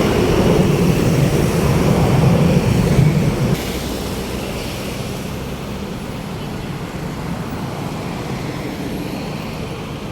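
Tour bus diesel engine running loud and low as it goes past, dropping off suddenly about three and a half seconds in, leaving steady traffic noise.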